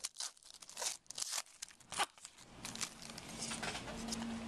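Trading card pack wrapper being torn open and crinkled, with several sharp crackles over the first two seconds, the loudest about two seconds in. A faint steady hum comes in near the middle.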